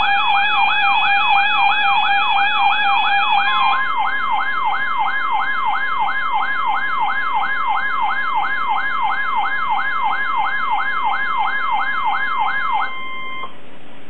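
Weather radio receivers sounding their alert for a Special Marine Warning: a repeating rising whoop, about two a second, with a steady tone near 1 kHz joining about four seconds in, typical of the NOAA Weather Radio 1050 Hz warning alarm tone. Other steady alert tones sound in the first few seconds, and everything cuts off about 13 seconds in, leaving a hiss.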